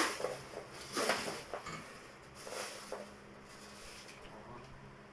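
A few short scrapes and rubs as a refrigerator is pushed and shifted by hand, loudest at the start and about a second in, then a weaker one a little later.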